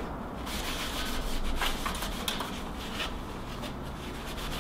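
Hand rubbing and wiping a computer part during cleaning: irregular scratchy rubbing with a few light clicks.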